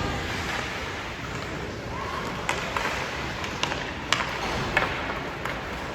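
Sports game in progress: a steady background din of players and spectators, with about six sharp knocks from play scattered through the middle.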